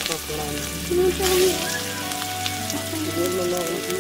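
Hot oil sizzling in a steel wok as a few pieces of food fry in it, a steady hiss that swells briefly about a second in.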